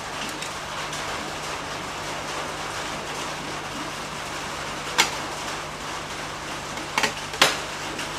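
Steady hiss of rain with a constant low hum underneath, broken by a few sharp clicks about five seconds in and twice near seven seconds.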